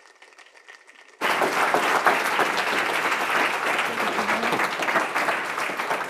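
Audience applauding a speaker's introduction. The clapping is quieter for about the first second, then dense and steady, thinning near the end.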